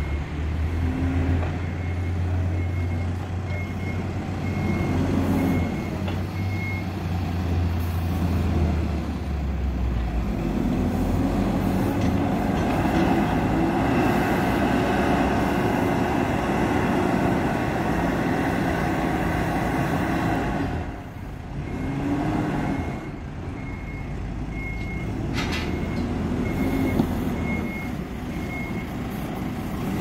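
Hidromek HMK 102S backhoe loader's diesel engine working as the machine moves and pushes fill dirt. It revs up under heavier load after about ten seconds and eases off briefly just past twenty seconds. Its reversing alarm beeps steadily for the first several seconds and again near the end.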